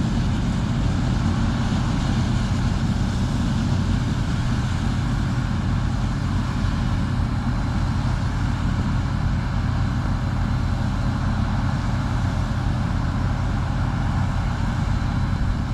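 Heavy farm or truck diesel engine running steadily at a constant speed: an even, low hum.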